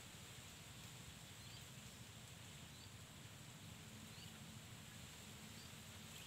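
Near silence: faint outdoor ambience with a short, high chirp repeating roughly every second and a quarter.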